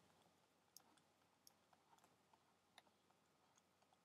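Near silence with a few faint, scattered clicks from a stylus tapping on a writing tablet during handwriting.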